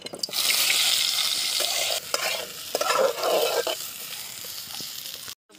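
Whole potatoes sizzling as they land in hot vegetable oil in an aluminium kadai, loudest for the first couple of seconds. The sizzle then settles to a softer frying hiss while a metal spatula scrapes them around the pan, and it cuts off abruptly near the end.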